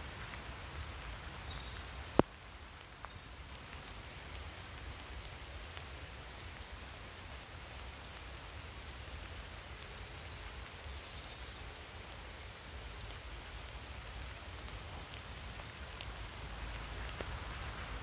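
Steady light rain falling on leaves and grass, an even hiss with a low rumble beneath it. A single sharp click about two seconds in.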